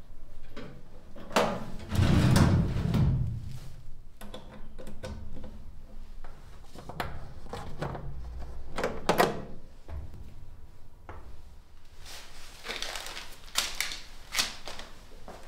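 Wooden cabinet drawer being handled while metal drawer pulls are screwed on: scattered knocks and small clicks, with a heavier thump about two seconds in.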